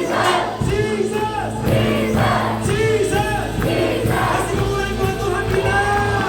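Live praise music: many voices singing together over a band with a steady bass.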